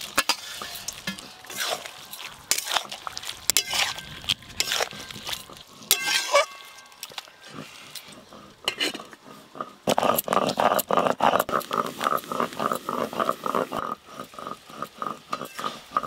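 A metal spatula stirring and scraping vegetables and fried shrimp in a metal karai, with repeated clinks against the pan and light sizzling. From about ten seconds in a pitched, rapidly pulsing sound joins it.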